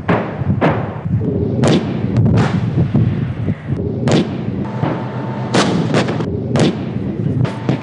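Tank main guns firing and shells exploding: a rapid, uneven series of about ten heavy blasts, each dying away quickly.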